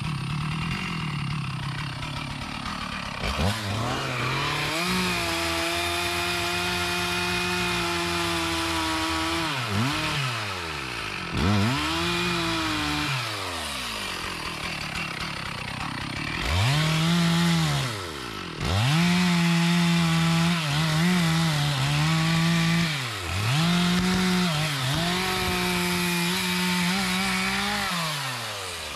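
Two-stroke chainsaw cutting a mahogany tree. It idles at first, revs up about three seconds in, then rises and falls in pitch again and again, with several short drops back toward idle.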